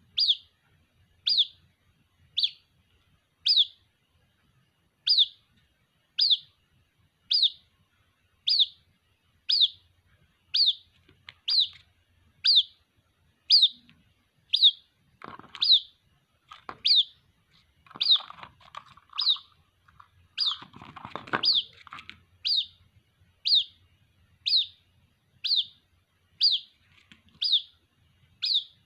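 White-breasted waterhen chick calling for its parent: a short, high, falling peep repeated steadily about once a second. A few rougher, lower noises come in between the peeps around the middle.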